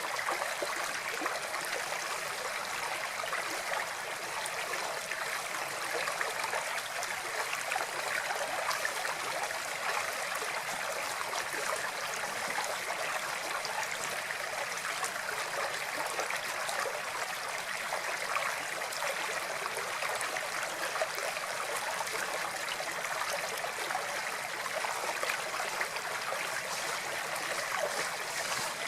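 Flowing water running steadily, a continuous even rush and trickle.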